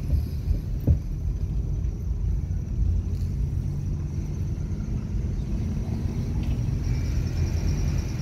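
Low rumble of a car's engine and tyres on the road, heard from inside the cabin while driving. There is a single thump about a second in.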